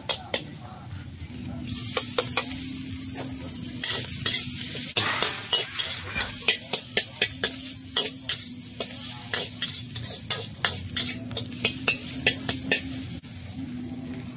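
Egg and shallots sizzling in hot oil in a steel wok while a metal spatula repeatedly scrapes and clacks against the pan in quick stir-frying strokes. The sizzle starts about two seconds in and runs on under the steady clatter of the spatula.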